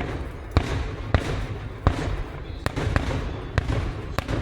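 Distant fireworks display: a rapid, irregular string of sharp bangs and crackles, several a second, over a continuous rumble of bursts.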